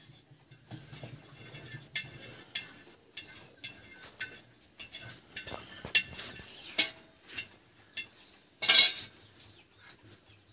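Steel kitchen utensils clinking and knocking: a steel spatula, steel bowl and pots handled beside the stove, a string of separate sharp clinks with the loudest one a little before the end.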